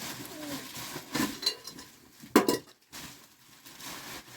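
Kitchenware clinking and knocking, with a louder, sharp, ringing clank about two and a half seconds in.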